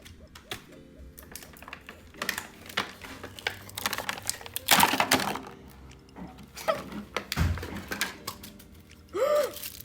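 Irregular clicks, taps and knocks of hands handling a toy box and its plastic packaging, louder in a cluster about halfway through.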